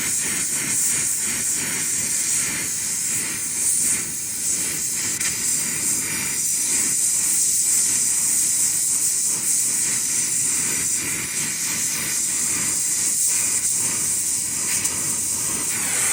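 Steady, loud hiss of gas flowing under pressure, unbroken throughout.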